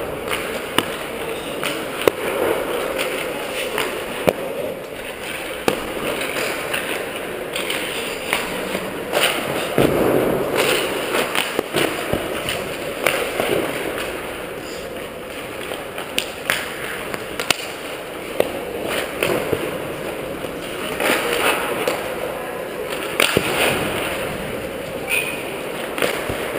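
Ice hockey warm-up in an indoor arena: irregular sharp cracks of pucks being shot off sticks and hitting pads and boards, over skates scraping and carving the ice, with faint voices in the rink.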